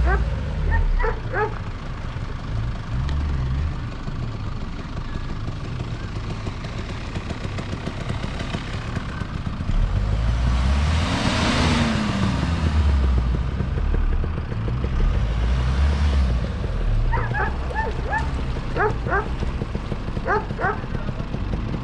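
Land Rover Freelander 2's 2.2 diesel engine running as the SUV crawls through mud on street tyres, its revs rising and falling once about halfway through. A dog barks in short yaps at the start and several times in the last few seconds.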